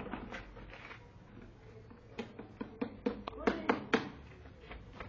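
Irregular sharp taps and clicks, bunched between about two and four seconds in.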